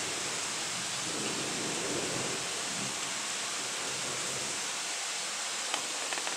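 Thunderstorm ambience: a steady, even hiss, with a faint low rumble swelling about one second in and fading by three seconds, and a few faint ticks near the end.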